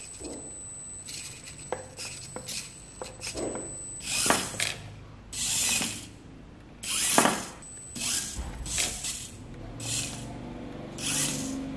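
Two micro RC cars, the Q25 Jeep among them, with their tiny electric motors and gearboxes whirring in about seven short bursts as the throttle is worked, with a few light clicks between.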